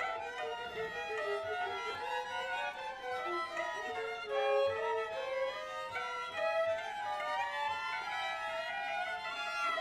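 Music: bowed violin playing sustained, shifting notes in the upper register.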